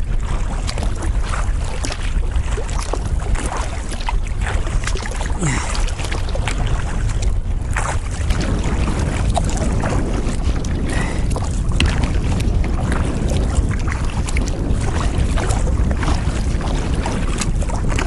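Strong wind buffeting the microphone as a steady low rumble, over choppy lake water slapping against a kayak's hull and the splashes of paddle strokes.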